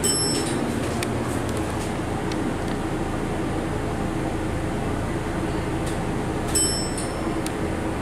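Hydraulic passenger elevator cab travelling up between floors: a steady low hum and rumble. Two brief high ringing clicks come, one at the start and one about six and a half seconds in.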